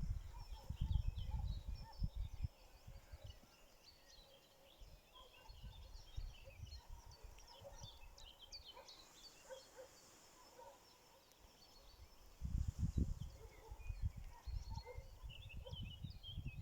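Many small birds chirping and calling in short, scattered notes. Bursts of low rumble come in the first couple of seconds, again about two-thirds through, and near the end.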